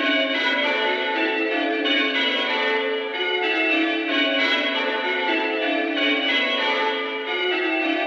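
Village church bells change ringing, a peal of six bells struck in continuous overlapping rounds.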